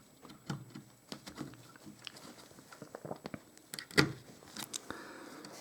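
Light clicks and rustling of hands working a stock CPU cooler's fan cable into its header on the motherboard, with one louder sharp click about four seconds in.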